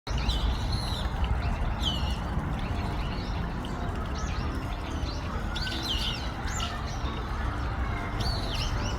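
Small birds chirping in short, repeated calls over a steady rushing background noise.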